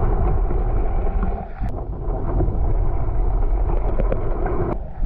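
Steady, heavy rumble and rush of moving water as heard through an underwater camera's housing, with a brief dip about a second and a half in and again near the end.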